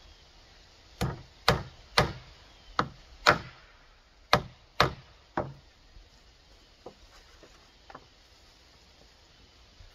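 Hammer driving nails into a rough-sawn wooden offcut board on a slatted wall: about eight sharp blows roughly half a second apart in a few short runs, then two faint knocks near the end.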